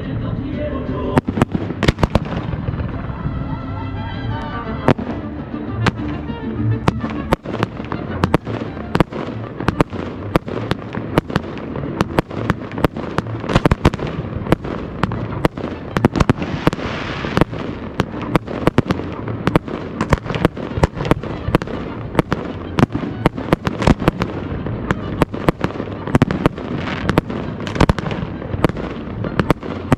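Fireworks display: a rapid, continuous barrage of sharp bursts and pops, several a second, with music playing under the first several seconds.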